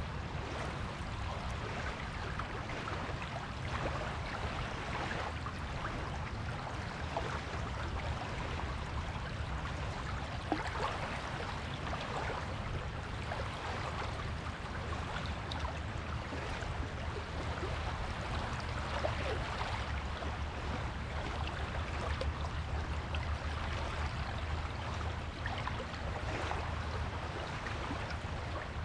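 Shore water washing on a beach: a steady watery wash full of small crackles, over a low rumble.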